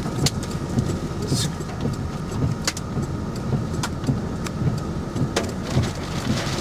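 Car driving, heard from inside the cabin: a steady low road and engine rumble with a faint steady whine, and a few sharp taps scattered through it.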